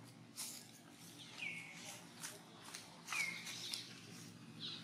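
Three short, high animal calls about a second and a half apart; the first two each slide down in pitch to a brief held note. Scattered sharp clicks and rustles sound between them.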